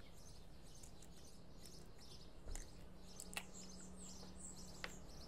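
A few faint clicks and small knocks as a plastic bottle of primer is handled and its cap twisted open, over faint bird chirping in the background.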